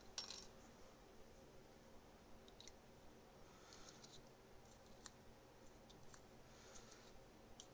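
Near silence with a handful of faint, scattered clicks, the firmest right at the start: small metal parts of a Lee hand case trimmer being handled and adjusted with an Allen wrench.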